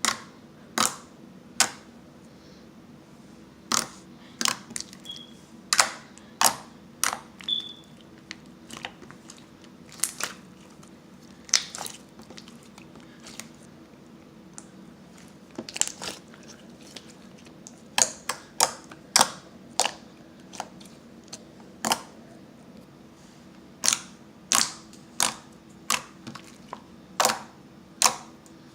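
Slime being worked by hand, making irregular sharp pops and clicks as air bubbles in it burst, sometimes several close together.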